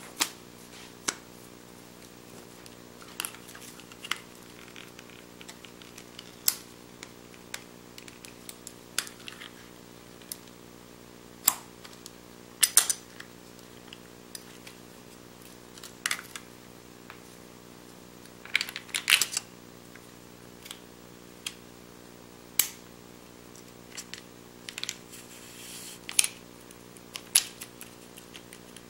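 Irregular clicks, taps and knocks from handling a Pentax Super-A 35mm SLR and a film cassette while loading film, with the camera back opened and the leader threaded toward the take-up spool. There are quick clusters of clicks about thirteen and nineteen seconds in, over a faint steady hum.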